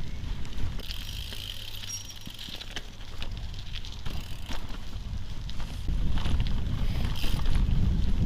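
Gravel bike on the move: wind buffeting the microphone as a low rumble over tyre noise on the track, with scattered clicks and rattles from the bike. The wind rumble gets louder about six seconds in.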